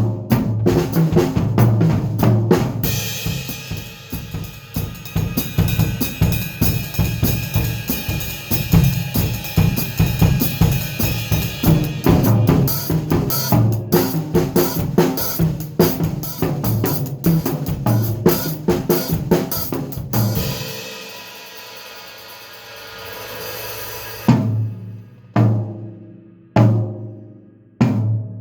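Drum kit played in fast, busy passages of snare, bass drum and cymbals. About twenty seconds in the strokes stop and a cymbal rings on alone, then single heavy strikes with a low ring come about once a second.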